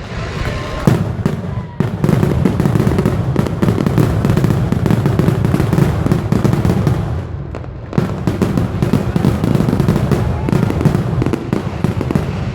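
Fireworks display going off in a dense run of bangs and crackling with a heavy low rumble, easing briefly a little past halfway before picking up again.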